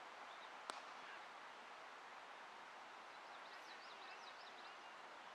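A single sharp crack of a cricket bat striking the ball, under a second in, over quiet outdoor ambience; faint bird chirps follow a few seconds later.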